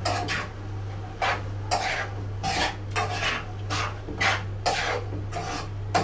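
A spoon scraping and stirring in a cooking pot, in short uneven strokes about two a second, over a steady low hum.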